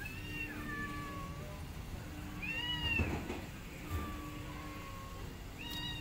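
A cat meowing four times in short pitched calls, the third one long and slowly falling.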